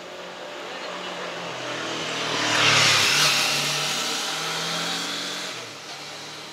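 A motor scooter passing along the road. Its engine grows louder to a peak about three seconds in, drops in pitch as it goes by, then fades away.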